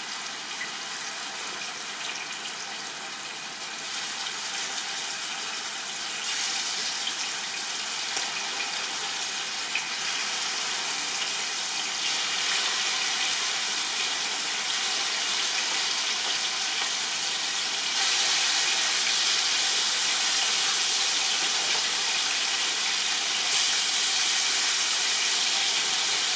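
Marinated chicken tikka pieces sizzling in hot oil in a large pan, a steady hiss that grows louder in steps as more pieces go in.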